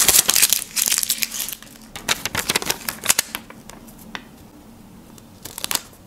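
Homemade paper sticker peeled off its backing paper, crackling and rustling for about three seconds, then pressed down onto a notebook page; a few quick taps near the end.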